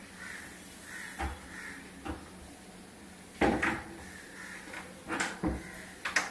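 Wooden wardrobe doors being opened and shut, a few knocks and bumps with the loudest cluster a little past the middle, while a crow caws.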